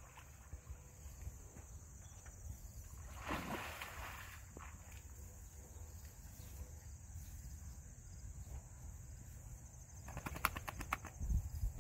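Quiet farmyard ambience among livestock: a low wind rumble on the microphone and a faint steady high hum, a short breathy rush about three seconds in, and a quick run of sharp clicks near the end.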